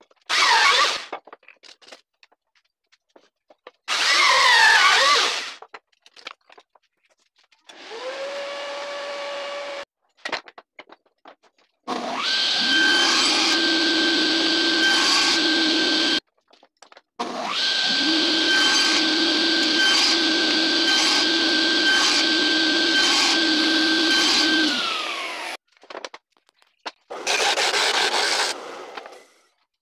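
Woodworking power tools in turn: a drill press boring wood with a hole saw in two short bursts, its pitch sagging under load. Then a table saw runs for several seconds at a time while small wooden blocks are cut, with a steady motor whine and repeated cutting strokes, winding down near the end. A disc sander sands a block briefly at the end.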